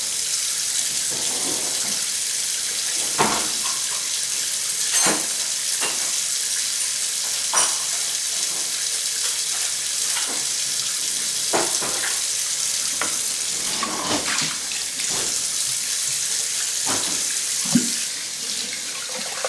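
Kitchen tap running steadily into a sink during hand dishwashing, with scattered clinks and knocks of dishes being handled.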